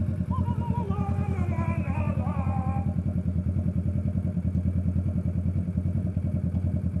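Kawasaki motorcycle engine idling steadily, with a fast, even pulse. Some faint wavering higher tones sound over it in the first few seconds.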